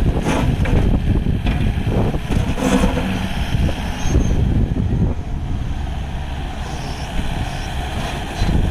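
Kubota KX080-4 midi excavator's diesel engine running steadily, with several short clanks and knocks in the first few seconds.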